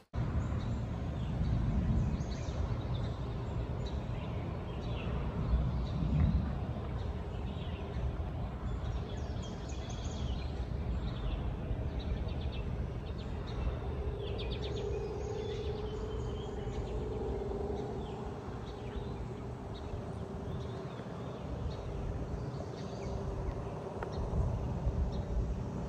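Outdoor ambience: birds chirping now and then over a steady low rumble.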